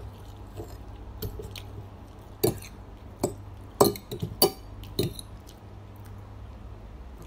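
Metal spoon and fork clinking and scraping against a plate of noodles in a run of irregular sharp clicks, busiest in the middle. A steady low hum runs underneath.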